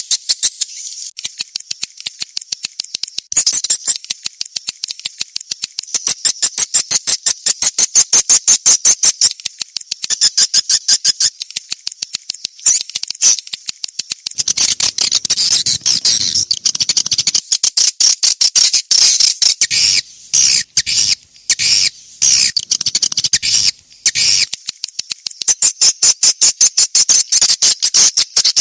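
Swiftlet call lure recording: a dense, rapid stream of high twittering chirps from swiftlets, the kind of sound played in swiftlet houses to draw the birds in to roost and nest. It breaks off for short moments a few times past the middle.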